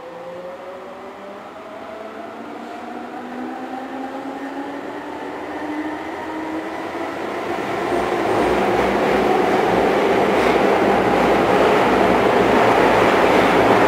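Keihan 2600 series electric train heard from inside the car as it accelerates: the traction motors whine in several tones that rise steadily in pitch, while the wheel and running noise grows steadily louder and fills in strongly about halfway through.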